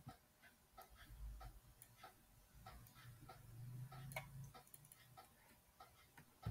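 Near silence with faint, evenly spaced ticking, about three ticks a second.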